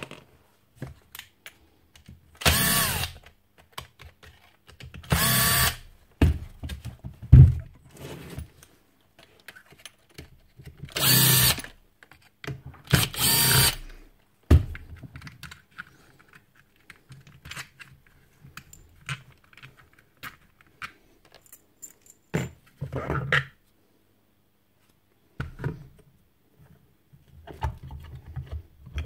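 Rotabroach Commando 40 magnetic drill's motor run in four short bursts of about a second each, spinning up with a whine and stopping. Between and after the bursts come scattered clicks and knocks from the drill being handled and taken apart.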